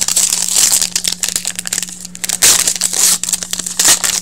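Trading cards being handled and flipped through close to the microphone, giving uneven rustling and crinkling with louder flurries about halfway and near the end.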